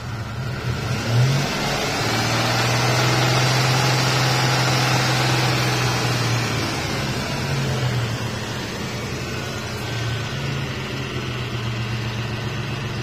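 Kia Carnival petrol engine revved up from idle about a second in, held at higher revs for several seconds, then let fall back to a steady idle.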